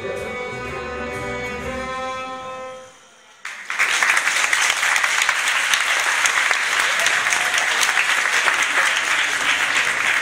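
A children's ensemble of violins and a woodwind ends its piece on held notes that die away a couple of seconds in. After a short pause the audience breaks into loud, steady applause.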